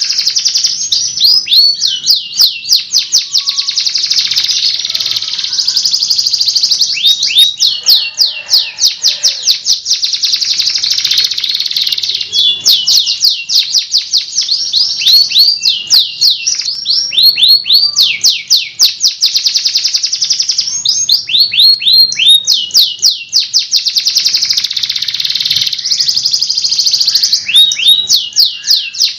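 Domestic canary singing long rolling trills: long runs of rapid, high repeated notes with brief breaks between phrases.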